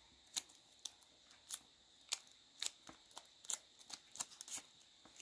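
Webcam packaging being opened by hand: faint, short crackles and clicks, about two a second and irregular, as the packing is pulled and handled.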